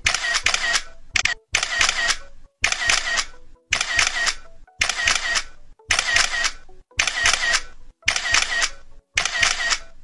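Camera shutter sound repeating at an even pace, about once a second: each time a sharp cluster of clicks with a short hiss after it.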